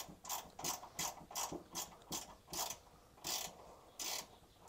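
Hand ratchet clicking in short back-and-forth strokes, about three a second at first and slowing toward the end, backing out a 13 mm heat-shield bolt.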